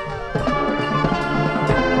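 Marching band playing, with brass (trumpets and trombones) holding sustained notes over a moving low line and some drums; the band gets louder about a third of a second in.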